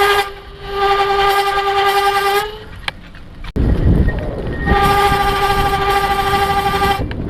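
Electric bike's rear disc brake squealing: two long, steady, high-pitched squeals of about two seconds each, with a sharp click between them. The pads squeal, which the owner takes to mean they need cleaning.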